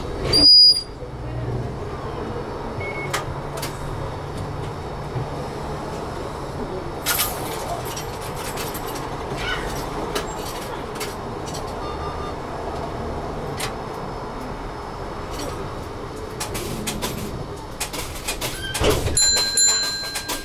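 Inside a Toyohashi Railway T1000 'Hottram' low-floor tram standing still: a steady low hum from the tram with scattered clicks. Right at the start there is a brief loud sound with a high ringing tone, and near the end a steady electronic beep comes on.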